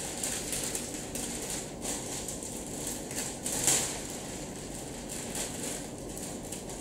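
Irregular crinkly rustling of a large white sheet being handled and pulled around the body, with one louder crackle about three and a half seconds in.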